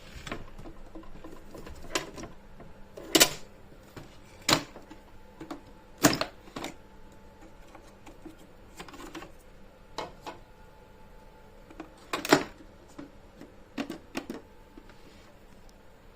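A series of sharp clicks and knocks at irregular intervals, about a dozen, the loudest a few seconds in and again near the end.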